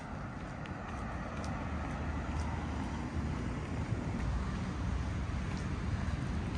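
Outdoor street ambience: road traffic noise from passing cars, growing slightly louder, with wind buffeting the microphone.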